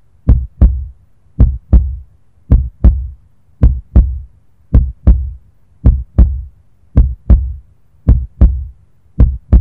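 Heartbeat sound effect: deep, paired lub-dub thumps repeating evenly, a little under one beat per second.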